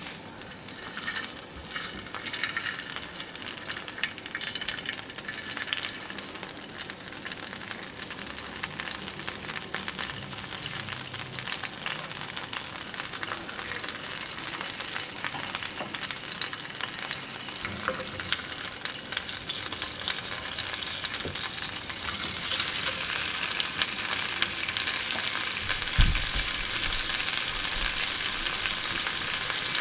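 Half-steamed chicken pieces frying in oil on a small non-stick tawa, with a steady sizzle and the clicks and scrapes of stirring. The sizzle grows louder about two-thirds of the way in, and a single dull thump sounds near the end.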